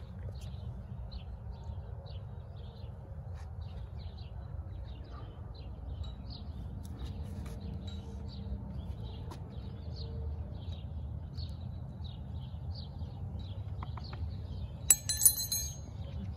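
A small songbird chirping over and over, about two short high chirps a second, over a steady low outdoor rumble. About fifteen seconds in comes a brief burst of sharp clinks, the loudest sound.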